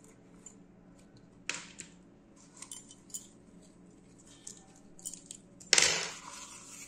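Hands handling a cloth drawstring pouch, a microphone cable and small accessories: light rustles and a few small clicks, with a louder brief rustle near the end.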